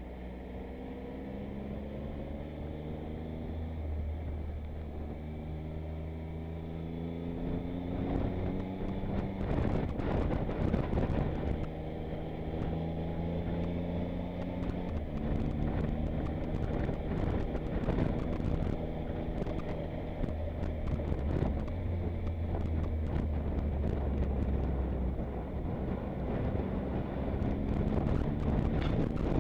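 Motorcycle engine running under way, its pitch climbing in steps and dropping back several times as the rider works the throttle and gears, over a steady low wind rush. Scattered sharp ticks start about a quarter of the way in and continue.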